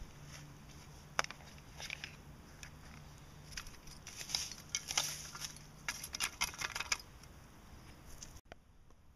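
Dry leaf litter and loose soil being scraped and pushed back over a small dug hole with a hand trowel: a run of crackling rustles and short scrapes, busiest in the middle, that stops abruptly near the end.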